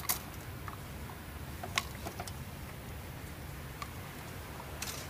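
Light clicks and taps of a carburetor's plastic choke cap and its spring being fitted against the metal choke housing. A sharp click at the start and another just under two seconds in, fainter ticks scattered between, over a low steady hum.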